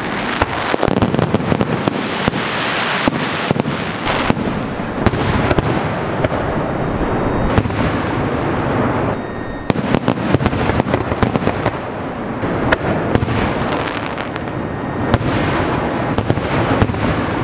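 Fireworks display: aerial shells bursting in a rapid, continuous barrage of sharp bangs and crackles, with a brief lull a little over nine seconds in.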